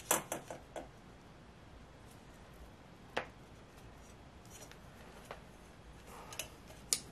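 Wire stripper/crimping pliers clicking and snipping as they work a thin wire. There is a quick cluster of sharp clicks at the start, single clicks about three and five seconds in, and a few more near the end.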